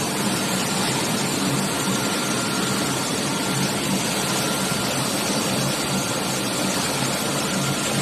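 A steady machine noise, a motor running evenly with a constant hiss and a low hum.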